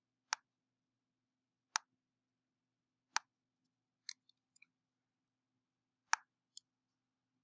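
Computer mouse clicking: four sharp single clicks spaced a second or more apart, with a few fainter ticks between them, over a faint steady hum.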